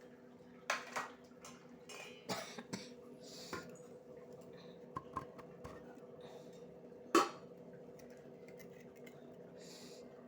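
Occasional clinks and knocks of a spoon against dishes while food is handled, the loudest about seven seconds in, over a faint steady hum.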